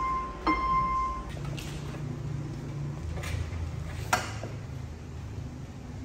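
A Yamaha electronic keyboard sounds a note at the start and another about half a second in, held briefly, as a baby monkey presses the keys. Then come a few light knocks and taps, the sharpest about four seconds in, as the monkey clambers down a stack of metal-legged stools.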